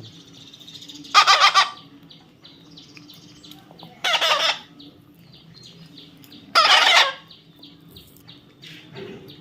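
Parrot squawking: three loud, harsh calls about two and a half seconds apart, each lasting about half a second, with faint rapid high chirping in between.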